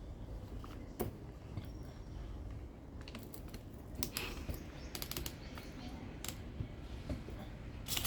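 Irregular light clicks, taps and rustles of hand-held objects being handled, clustered about a second in and again from about three to five seconds in.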